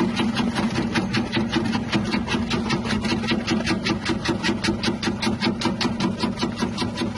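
Electric cassava slicing machine running: a steady motor hum under a fast, even train of cutting strokes, about six a second, as the rotating blades slice through cassava.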